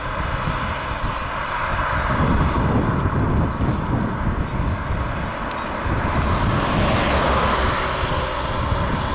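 Steady rushing and rumbling noise of a moving vehicle, swelling and fading again about seven seconds in.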